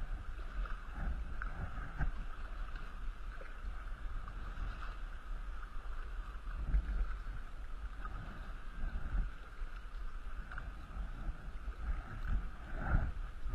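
Paddle strokes in the water and water lapping against the hull of an Intex Explorer two-person inflatable kayak, over a steady low rumble.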